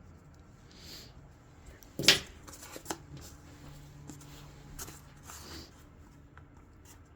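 Small handling noises while a two-part epoxy tube is squeezed out onto cardboard: one sharp click about two seconds in, followed by a few lighter clicks and soft rustles.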